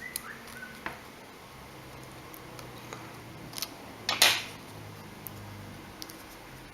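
Small clicks and scrapes of a pry tool being worked under a part inside an opened smartphone, with one louder, sharper scrape about four seconds in.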